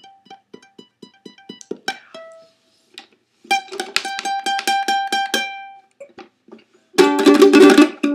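Ukulele being played: soft single plucked notes at first, then about three and a half seconds in a quick run of rapidly repeated picked notes, and loud strummed chords near the end.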